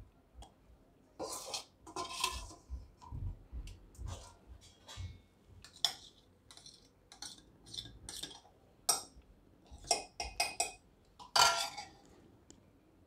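A metal spoon scraping a spiced masala mix out of a steel bowl and tipping it into a glass jar: an irregular run of short scrapes and clinks, the loudest near the end.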